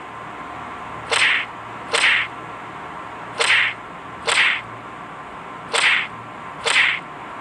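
Whip-crack slap sound effects for blows, six of them in three pairs about a second apart, each a short swishing crack.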